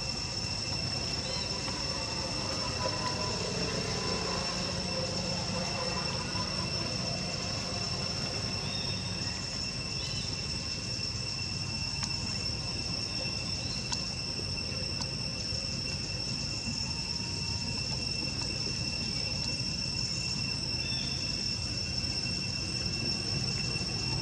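Steady high-pitched drone of insects in two even tones, over a low steady rumble, with a few faint short chirps.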